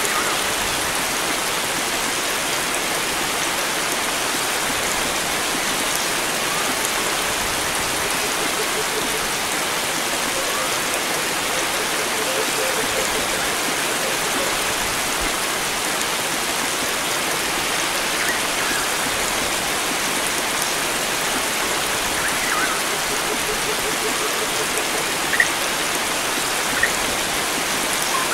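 Steady rush of flowing water, like a stream, with faint bird chirps here and there and a few sharper chirps near the end.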